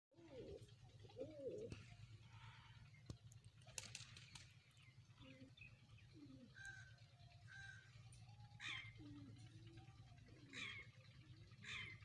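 Domestic pigeons cooing softly in low, rolling calls, with a few short high chirps near the end over a steady low hum.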